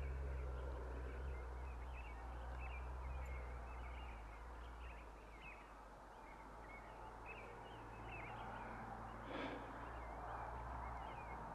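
Faint dawn chorus of small songbirds chirping continuously over a low steady rumble, with one brief louder sound about nine seconds in.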